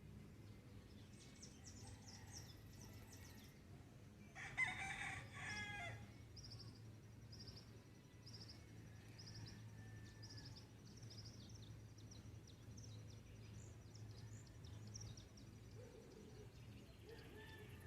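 A rooster crows once, about four and a half seconds in, the loudest sound here. Faint chirping of small birds runs around it, including a regular series of short high chirps after the crow.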